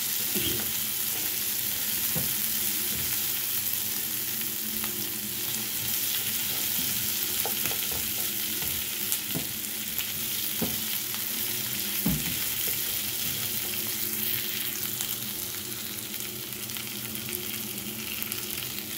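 Beef and sliced red onions sizzling steadily in oil in a non-stick frying pan, with a few scrapes and taps of a spatula as they are stirred. The onions are being cooked only until translucent, not browned.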